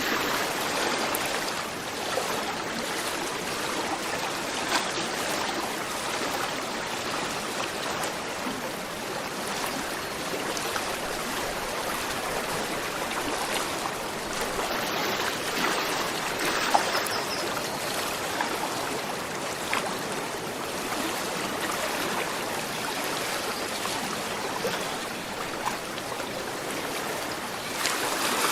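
Gentle river flowing steadily: a continuous rush of running water with small trickles and the odd brief splash.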